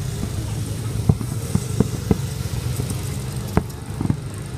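Motor vehicle engines running steadily, with several sharp bangs or knocks breaking through; the loudest comes about three and a half seconds in.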